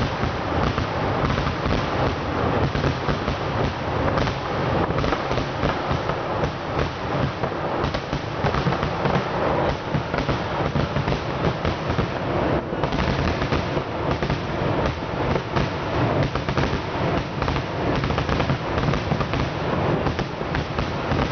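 Temple festival fireworks going off in a dense, continuous barrage, with many bangs and cracks overlapping without a break.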